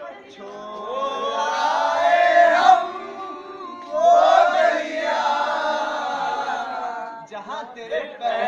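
A group of young men singing together without instruments: two long drawn-out sung phrases, the second starting about four seconds in, then loose chatter near the end.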